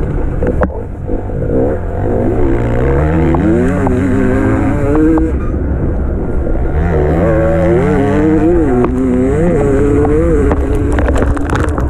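Enduro motorcycle engine heard on board, revving hard through the gears: the pitch climbs, drops back at each shift and climbs again. A few sharp clacks sound near the end.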